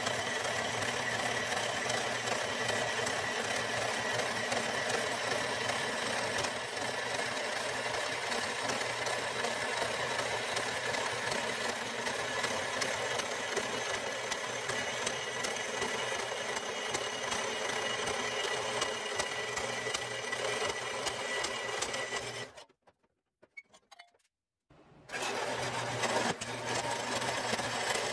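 Horizontal metal-cutting band saw running steadily, its blade cutting down through steel plate, with a thin high tone over the motor and blade noise. The sound cuts off suddenly for about two seconds near the end, then resumes.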